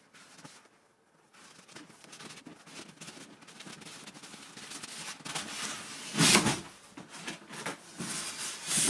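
Close-fitting lid of a large cardboard box being worked up and off its base, cardboard rubbing and scraping against cardboard, the noise growing louder as the lid rises. There is a louder burst about six seconds in and another near the end.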